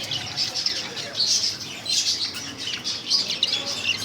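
Hagoromo budgerigars chirping and chattering continuously: quick, overlapping high chirps.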